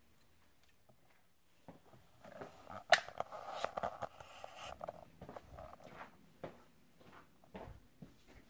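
Footsteps and rustling as a person moves about a small room holding the recording phone, with a sharp knock about three seconds in and scattered light knocks after.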